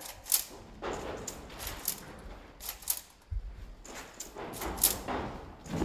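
Footsteps and scattered knocks with rustling, as people move about on a stage set. A low rumble comes in about halfway through.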